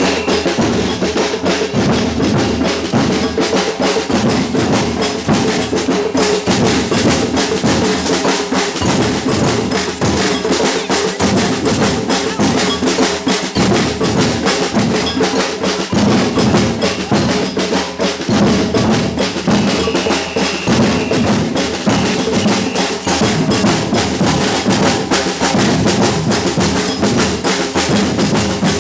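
Batucada drum ensemble playing a continuous samba rhythm without a break: deep bass drums under dense snare-drum strokes and sharp, woody hand-percussion hits.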